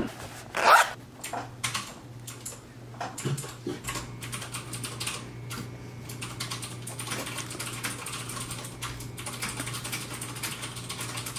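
Pen scratching and tapping on notebook paper as notes are written by hand, many small quick strokes over a steady low hum. A short loud sound comes less than a second in.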